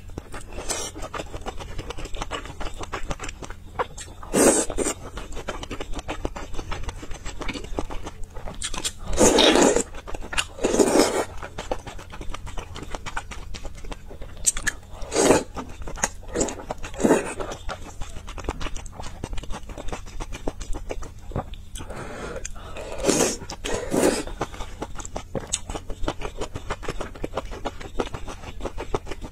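Close-miked eating sounds: chewing and biting soft food from a spicy stew, with louder mouth-sound bursts every few seconds.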